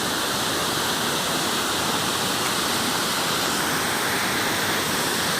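Steady rush of water pouring through a dam, an even hiss with no breaks.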